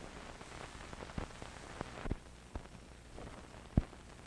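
Surface noise of an old film soundtrack between commercials: a steady hiss with a faint low hum, broken by scattered clicks and pops. The loudest pop comes near the end.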